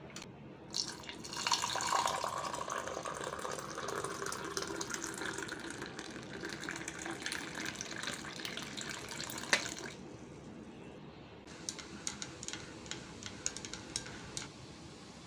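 Water poured steadily into a ceramic mug over instant coffee granules for about eight seconds. After that comes a stirrer clinking lightly against the inside of the mug, a few scattered taps.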